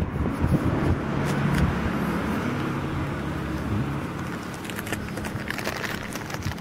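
Motor vehicle engine running with road noise, slowly fading.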